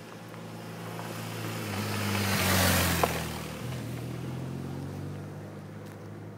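A motorcycle approaching on a gravel road and passing close by, getting louder to a peak partway through, its engine note dropping in pitch as it goes past, then fading as it rides away. A single sharp click comes just after the loudest moment.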